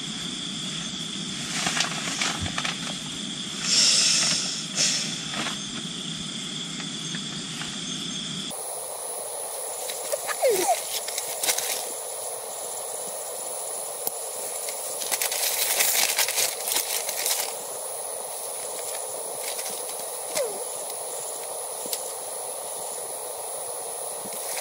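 Steady hissing outdoor night background, with occasional rustles and light knocks as sleepers shift on a plastic tarp. The background changes abruptly about a third of the way in.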